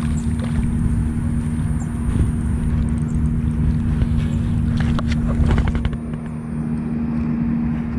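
Steady low rumble with a constant low hum underneath. A few light clicks come about five seconds in, and a thin high whine fades out near the end.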